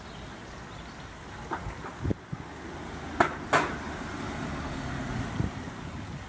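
Wind buffeting the microphone as a steady low rumble, with a few short sharp knocks, the two loudest close together just past the middle.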